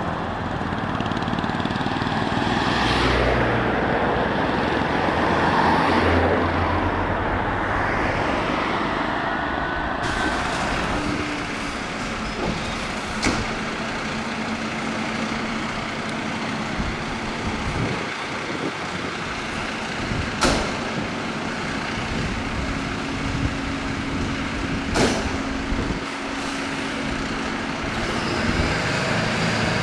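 Heavy truck engine running amid traffic and road noise, with three short sharp cracks scattered through.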